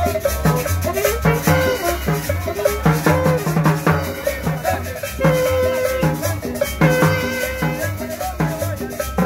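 Upbeat Latin dance music with a steady beat: a pulsing bass line, drums and shaken maracas under a sustained melody line.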